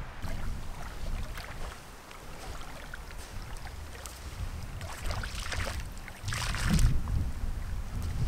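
Wind buffeting the microphone with a steady low rumble while small waves lap at a sandy loch shore; a louder rush of noise comes about five seconds in and fades near seven seconds.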